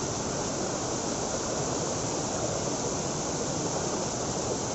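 Monsoon-fed waterfall rushing steadily, an even unbroken roar of falling water.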